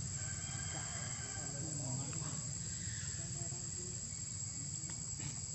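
Steady high-pitched drone of insects.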